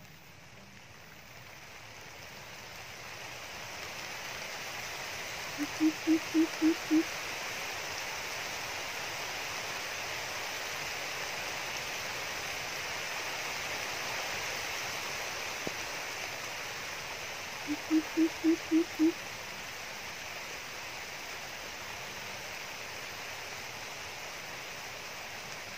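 Greater coucal call, a series of about six deep, evenly spaced hoots lasting just over a second, heard twice, about twelve seconds apart, over a steady background hiss. The call is a lure recording played from the trapper's loudspeaker to draw coucals to the trap.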